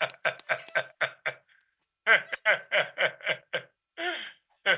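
A man laughing in quick, rhythmic ha-ha bursts, in several bouts broken by short pauses.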